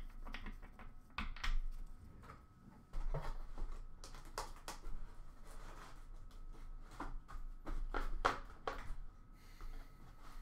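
Trading cards being handled and sorted: irregular light taps and clicks as cards and card stacks are set down and squared, with soft shuffling.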